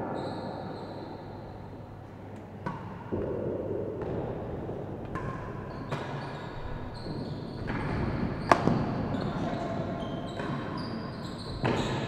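Real tennis rally: the hard ball cracks off racquets and off the court's walls and floor as a series of sharp knocks, one to two seconds apart, the loudest about eight and a half seconds in.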